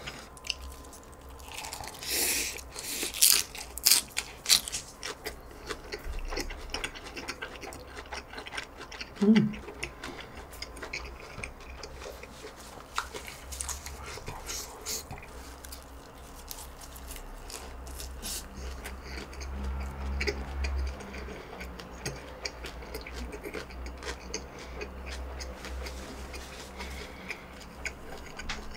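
Close-miked chewing and mouth sounds of a person eating a mouthful of rice with kimchi stew, with sharp clicks of chopsticks and bowl in the first few seconds. A brief hum of voice about nine seconds in.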